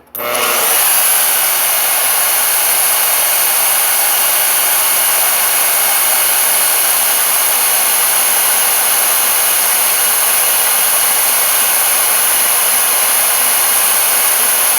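Portable bandsaw switched on and running, cutting a notch in a metal workpiece. It starts suddenly, its high whine rising for a moment before holding a steady pitch, and the sound stays even throughout.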